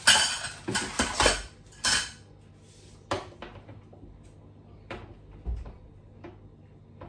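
Metal kitchen utensils clattering and scraping against a stainless-steel saucepan and plates: a quick run of clinks in the first two seconds, then a few scattered knocks and taps.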